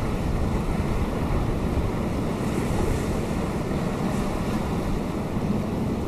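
Atlantic surf breaking on a rocky shore: a steady wash of waves with a deep rumble underneath, even in level throughout.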